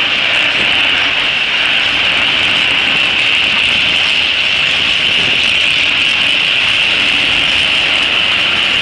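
Freight train of railway tank wagons rolling past close by: a loud, steady rumble and hiss of steel wheels running on the rails.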